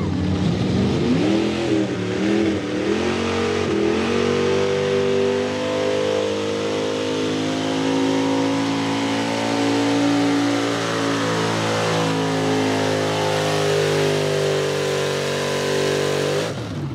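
Lifted Ford pickup pull truck's engine at full throttle pulling the sled, climbing in pitch over the first few seconds, then holding a steady high-rpm note until it lets off near the end.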